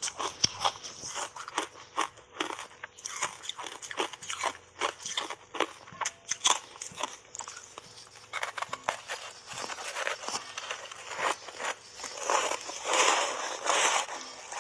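Dry block ice coated in milk powder and matcha being bitten and chewed: many sharp, irregular crunches, thickening into a dense stretch of chewing near the end.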